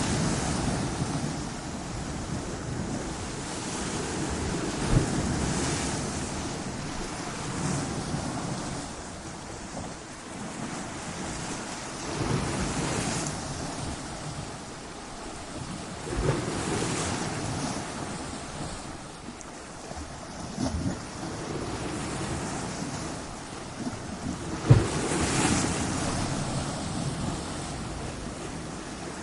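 Ocean waves breaking against coastal rocks: a continuous rushing surf that swells and ebbs every few seconds, with sharp crashes about 5 seconds in and about 25 seconds in, the later one the loudest.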